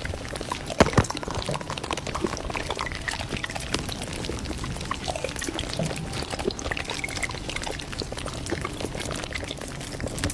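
Paper and clear plastic wrapping crinkling and rustling as a handmade paper blind bag is crumpled and unwrapped by hand. Two sharp crackles come at the start and just under a second in.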